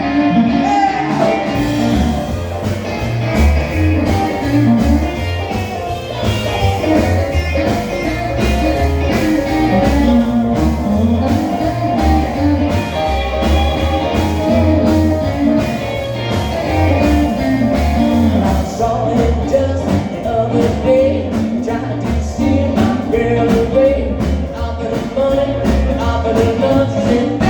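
Live rock and roll band playing an instrumental break between sung choruses, with a steady drum beat, bass and guitar.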